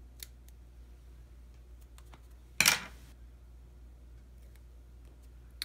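Small metal scissors working a paper sticker strip: a faint click early on, then one loud, short clack about two and a half seconds in.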